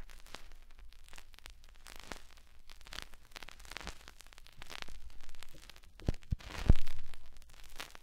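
Vinyl flexi-disc surface noise: the stylus running in an unmodulated groove gives a steady crackle of small clicks. A few louder pops come about six to seven seconds in.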